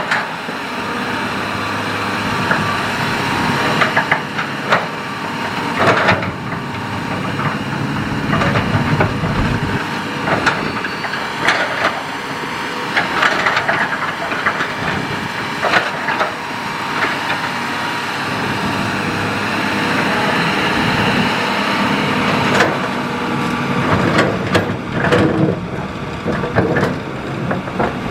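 Hitachi hydraulic excavator working: its diesel engine runs steadily under load while the bucket knocks and scrapes against gravel and stones many times.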